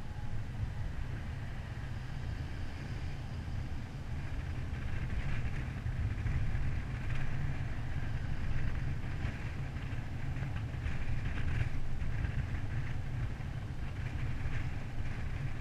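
Steady low wind rumble and road noise from a slowly moving car, picked up by a camera mounted on its hood, with a fluttering hiss joining in about a third of the way through.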